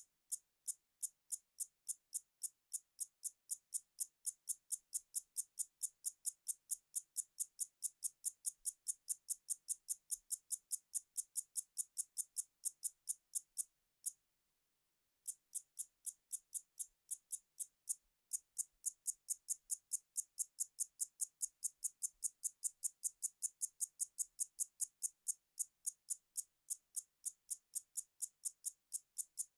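A steady series of sharp, high-pitched clicks, about three a second, with a pause of about a second near the middle.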